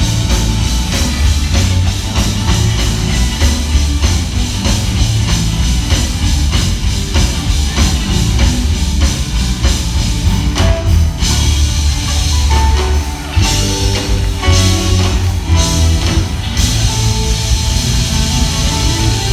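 Live gospel band playing loudly on electric guitar, bass and drum kit, with cymbal crashes in the middle stretch.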